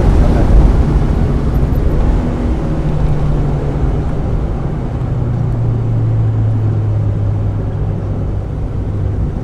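1995 Mazda Miata's 1.8-litre four-cylinder engine heard from inside the car at speed. Its note drops a few seconds in and then holds steady, over a constant rush of road noise.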